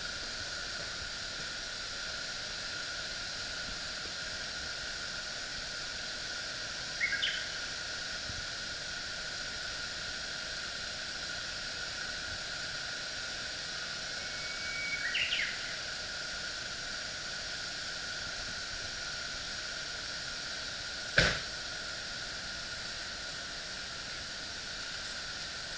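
Steady outdoor background hiss, with two brief high chirps about 7 and 15 seconds in and a single sharp click about 21 seconds in, the loudest sound.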